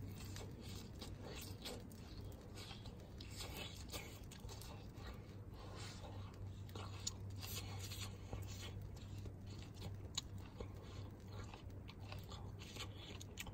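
A person chewing a mouthful of charcoal-grilled leek close to the microphone, with many small irregular crunches, over a steady low hum.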